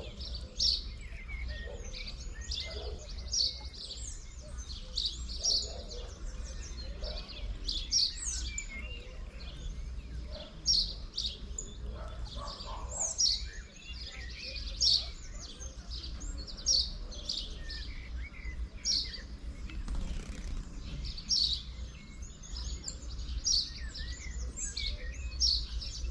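Birds chirping busily: many short, high chirps and tweets, several a second, overlapping all the way through, over a low steady rumble.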